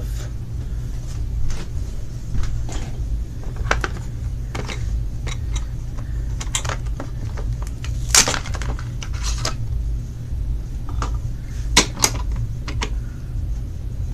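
Blister-card toy packaging being pulled open by hand: scattered crinkles, clicks and taps, with the sharpest snaps about eight seconds in and twice around twelve seconds, over a steady low hum.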